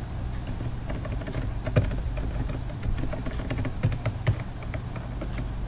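Scattered light clicks and taps of a computer mouse and keyboard, with a sharper click about two seconds in and a couple near four seconds, over a steady low hum.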